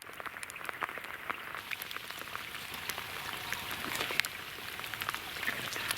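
Steady rain falling, with many individual raindrops ticking close by among the general patter.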